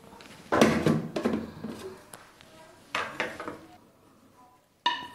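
Wooden spatula scraping and knocking against a metal frying pan as cooked onion-tomato masala is tipped into a plastic blender jar: a few separate clattering knocks, the loudest about half a second in, another about three seconds in, and a sharp tap with a short ring near the end.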